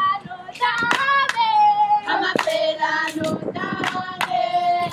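Group of Zulu girls singing a dance song together in held, chanted notes, with sharp hand claps at uneven intervals over the singing.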